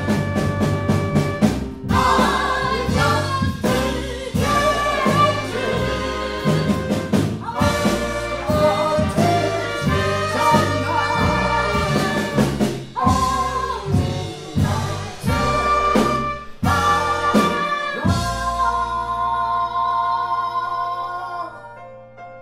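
Live jazz band with a horn section of trumpet, trombone and saxophones over a drum beat, playing the closing bars of a swing number. About eighteen seconds in the band stops on a long held final chord that fades out.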